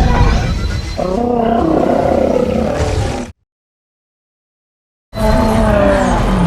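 Giant-monster roar sound effect made for Shimo, the Monsterverse ice Titan: a deep, rumbling roar with a wavering pitch, about three seconds long. After a pause of dead silence a second roar begins about five seconds in.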